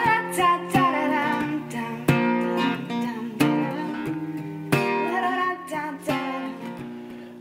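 Background music: an acoustic guitar song, strummed chords with singing over them.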